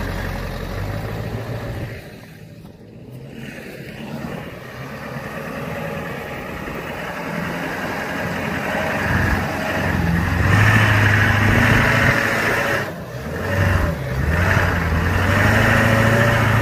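A motor vehicle's engine running, dropping back briefly about two seconds in, then getting louder and revving up through the second half.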